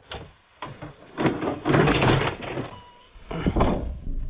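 Metal wire dog crate scraping and rattling as it is shoved into a van's cargo area, in several separate bursts, then a louder bang about three and a half seconds in as the van's rear hatch is shut.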